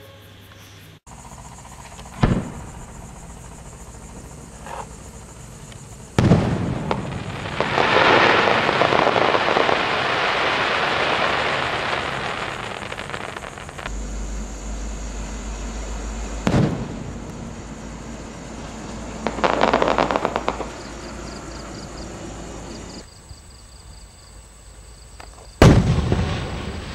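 Aerial firework display shells bursting in the sky: several sharp bangs, the loudest about six seconds in, followed by a long dense crackle lasting several seconds from the crackling crossette shell with crackling pistil. Later another shell bursts with a shorter crackle, and a final bang comes near the end.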